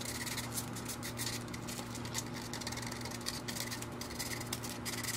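Sandpaper rubbed by hand in quick short strokes against the edge of a plastic boat-gauge housing, scuffing the plastic so epoxy will grip.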